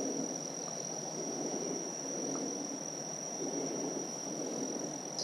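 Insects trilling steadily at one high pitch, over a low rushing noise.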